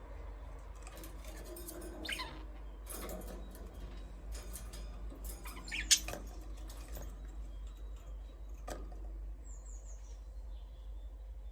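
Budgies chirping in short, scattered calls, with one sharp, louder chirp about six seconds in.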